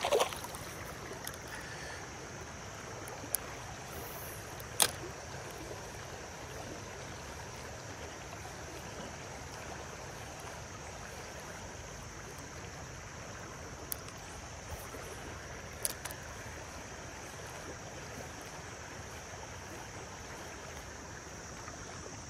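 Shallow creek water running steadily around a wading angler, a constant rushing wash with a steady high-pitched hum above it. A few short sharp clicks stand out, one near the start and others a few seconds in and again at about 14 and 16 seconds.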